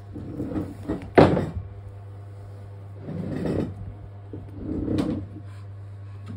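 Household handling noises: a sharp knock about a second in and another near the end, with softer rustling between them, over a steady low hum.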